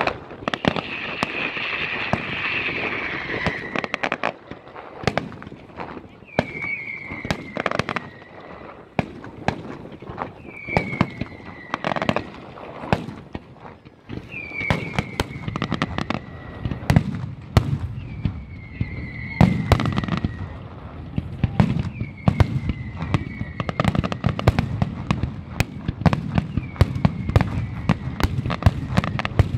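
Aerial fireworks bursting: a dense string of sharp bangs and crackles, with a falling whistle about every four seconds. A deeper rumble of booms builds through the second half.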